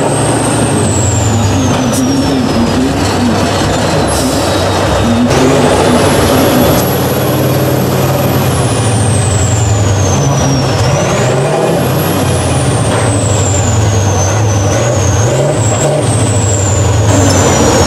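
Tatra 815 6x6 trial truck's diesel engine running under load as the truck crawls up a steep dirt slope, with a high whistle that climbs quickly and slowly falls away several times over the engine.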